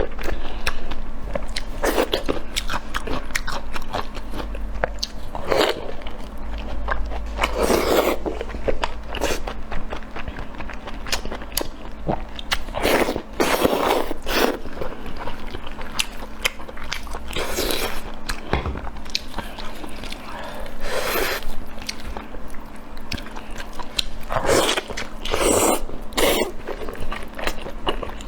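Close-miked eating: a person biting and chewing food, with repeated crunches at an irregular rhythm.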